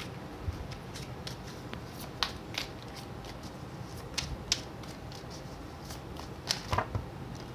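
A deck of tarot cards shuffled by hand: soft sliding of cards with scattered sharp clicks as they knock together, more of them near the end.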